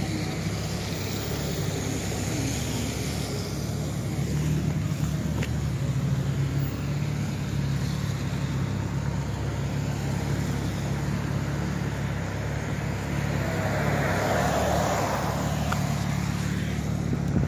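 Steady engine hum and tyre noise of a car rolling slowly along a city street, with a slightly louder stretch of road noise about three-quarters of the way through.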